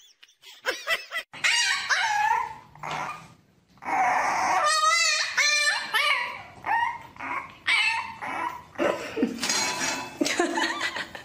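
A puppy yipping and whining in a string of short, high calls that bend in pitch, with a brief pause about three seconds in.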